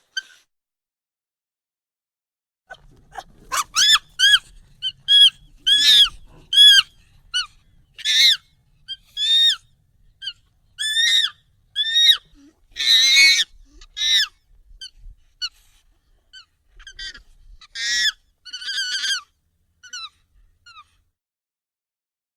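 Monkey calls, sped up and raised in pitch: after a silence of about two and a half seconds comes a run of short, high squeals, each arching up and down in pitch, two to three a second. They grow sparser and fainter toward the end.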